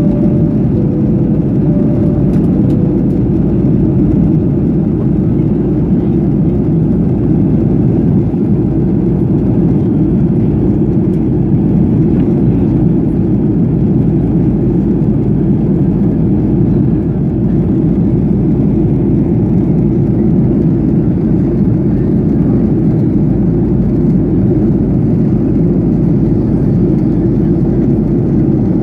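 Steady cabin drone of a Boeing 737 during descent: engine and airflow noise heard from inside the cabin, deep and even, with no change.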